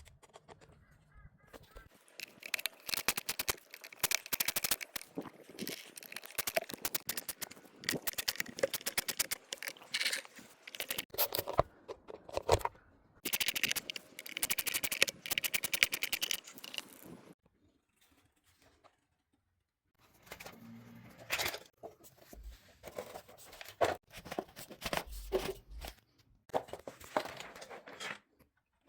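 Handling of the cordless grass trimmer's plastic parts: rapid clicking, rattling and crackling in bursts of a few seconds, with a quiet gap about two-thirds of the way through. No motor is running.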